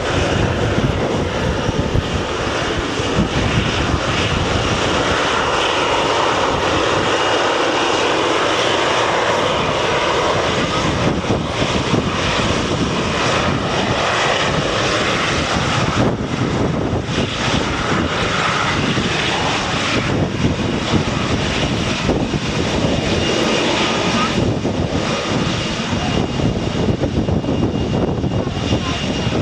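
Boeing 777-300ER's GE90 turbofan jet engines running loud and steady, a dense rush of engine noise with a faint high whine over it.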